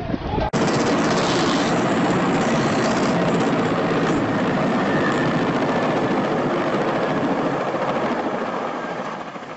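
Large helicopter flying low overhead: dense, steady rotor and engine noise that starts abruptly about half a second in and fades near the end.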